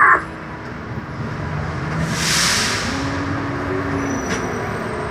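Shuttle bus engine running in slow traffic, heard from the driver's seat, its pitch rising slightly about two seconds in. Midway there is a short burst of hissing air.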